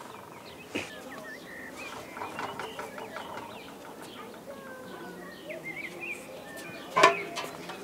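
Small birds chirping and chickens clucking, with a short, louder sound about seven seconds in.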